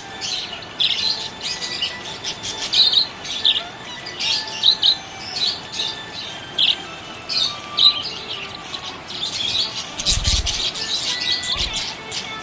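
Budgerigar chirping: a quick, irregular run of short high chirps and warbles. Two dull low thumps come near the end.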